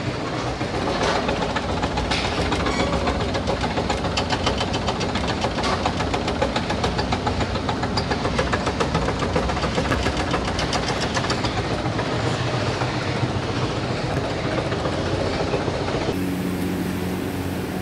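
Loud, steady din of bakery machinery running, with a fast, regular clattering through the middle. Near the end it changes to a steadier low hum.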